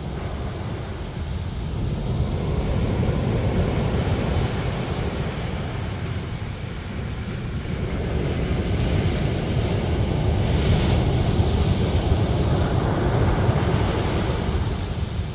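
Ocean surf breaking and washing up a pebbly beach, a continuous rush that swells a few seconds in and again in a longer surge from about nine seconds to near the end. Wind buffets the microphone, adding a low rumble under the surf.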